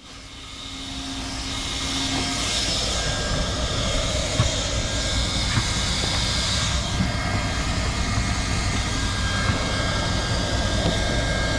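Hot-air plastic welding gun running, its blower giving a steady rushing hiss with a low rumble, heating the plastic at a crack in a kayak hull. The sound rises from faint over the first two seconds and then holds even.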